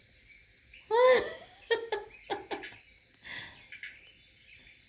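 Small birds chirping from a bird video playing on a TV. About a second in comes a short rising-and-falling voice sound, then a few brief clipped voice sounds.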